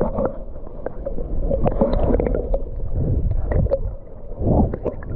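Muffled underwater sound of shallow water sloshing and gurgling around a submerged action camera, with scattered small clicks and knocks.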